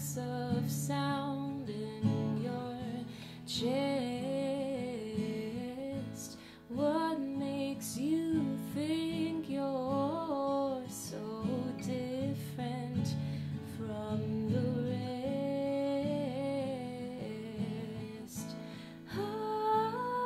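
Acoustic guitar in standard tuning, played with a woman's voice singing a slow, wavering melody over it.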